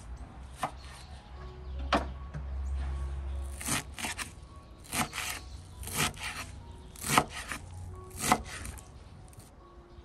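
Kitchen knife chopping a bunch of fresh parsley on a wooden cutting board, with single firm cuts roughly a second apart.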